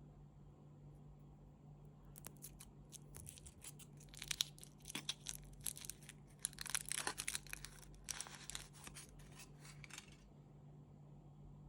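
Chocolate wrapper being torn open and crinkled in quick crackling rustles. It starts about two seconds in and stops abruptly near ten seconds.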